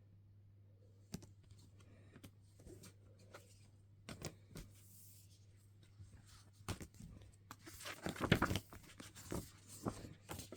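Album packaging being handled: scattered light taps and clicks, then a burst of rustling and tearing of the packaging about eight seconds in.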